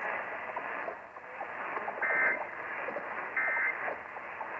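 Two short bursts of EAS end-of-message data tones, the warbling digital squawk that closes an alert, about a second and a half apart. They are heard through hissy, static-filled AM radio reception.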